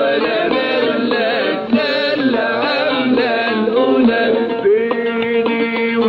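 Egyptian song with oud and frame drum: a man sings a drawn-out, ornamented melodic line over plucked oud and light drum taps, settling on a long held note about two-thirds of the way through.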